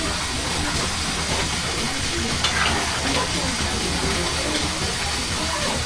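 A steady hissing noise, with faint voices in the background.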